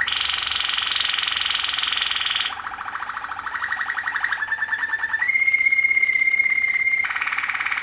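Canary singing a continuous song of rapid rolling trills that jump to a new pitch every second or two. A little past the middle comes a clear, steady whistled note held for about two seconds, then the trills resume.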